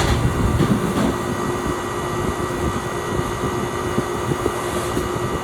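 Stoelting shake machine running its refrigeration cycle: the compressor and condenser fan make a steady hum with one constant tone through it. The system has just been recharged with 31 ounces of refrigerant after a condenser leak repair.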